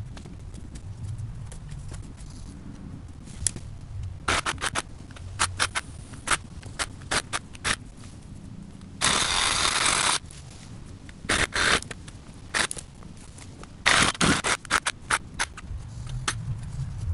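Freshly cut buckthorn branches being gathered and dragged over grass: a scatter of sharp snaps and clicks from twigs, with a scraping, rustling burst of about a second near the middle.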